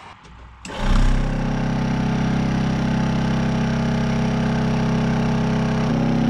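Electric vacuum pump switching on about a second in and running steadily with a loud, pulsing hum; the pitch shifts slightly near the end but it keeps running instead of shutting off, the sign of a bad shut-off switch.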